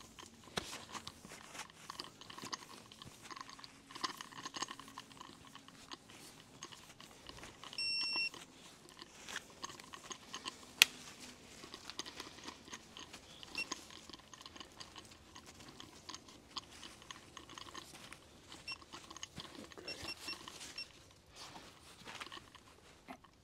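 Irregular scraping, rubbing and small clicks of hands and tools handling a motorcycle fork leg. A short electronic beep sounds about 8 seconds in, and a single sharp click about 11 seconds in is the loudest sound.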